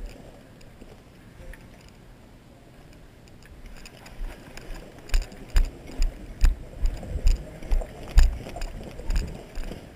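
Quiet at first, then from a little before halfway running footsteps on pavement, about two to three strides a second, each with a light rattle of carried gear.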